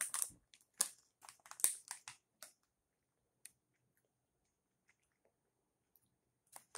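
Scattered crackles in the first two seconds or so from eating shrimp chips: the plastic snack bag crinkling in the hand and chips crunched while chewing. After that it falls to near quiet.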